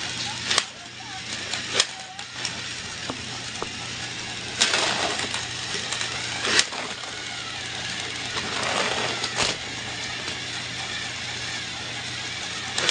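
Small motor of a battery-powered toy train running steadily, with several sharp plastic clicks and knocks.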